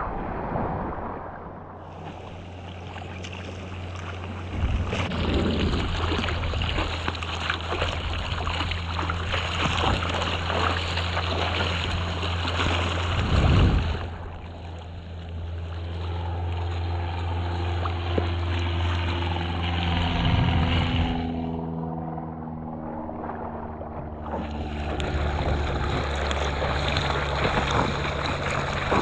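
Seawater rushing and splashing, with wind rumbling on a helmet-mounted GoPro's microphone while surfing. Around the middle the sound turns muffled for about ten seconds, as when water washes over the camera, then opens up again.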